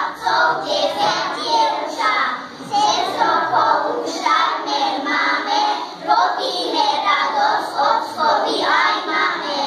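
A group of young children singing a song together on stage.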